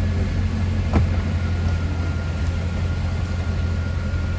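Steady low rumble of an idling engine, with a single sharp click about a second in.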